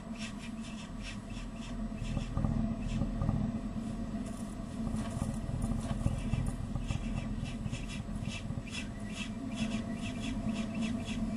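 Peregrine falcon chick giving a rapid series of short, high cheeps, over a steady low hum on the nest-box microphone.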